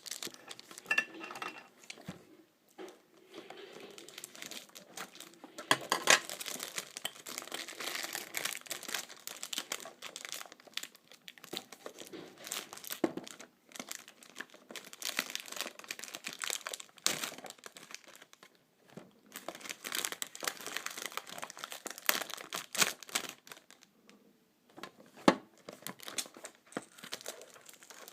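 Wrapping on a perfume box being crinkled and torn open by hand: irregular crackling and rustling with sharper snaps, pausing briefly now and then, as the packaging resists being opened.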